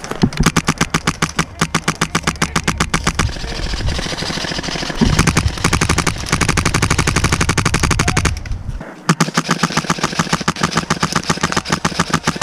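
Airsoft gun firing on full auto: a long, rapid, even stream of shots that breaks off for a moment about nine seconds in, then resumes.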